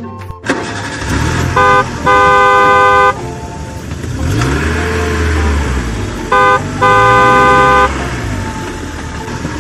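A vehicle horn sounding a short toot and then a long blast, twice, over a steady engine rumble that rises and falls in pitch between the two.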